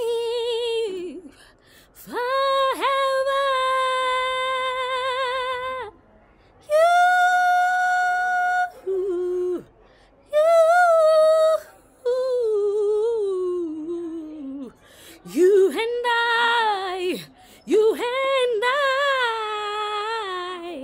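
A woman singing solo without accompaniment, in long held notes with wide vibrato, phrase after phrase with short pauses between.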